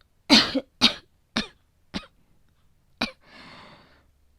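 A woman coughing in a fit: five short coughs in quick succession, the first two loudest, then a drawn-out breath and another loud cough at the very end. Acted coughing of someone sick with a feverish cold.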